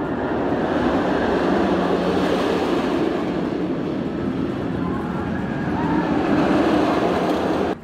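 Steel roller coaster train running along its track overhead: a loud rushing rumble that builds, swells again as the train passes, and cuts off abruptly near the end.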